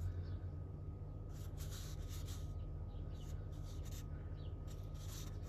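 Faint handling noise: light scrapes and clicks as small models are moved about, over a low steady hum.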